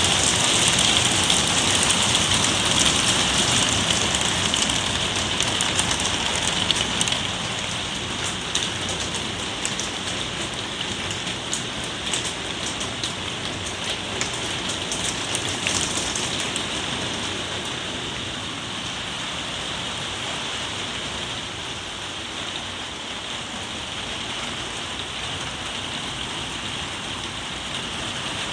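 Heavy rain drumming on a polycarbonate conservatory roof, heard from inside: a dense, steady patter of drops that eases a little after about seven seconds.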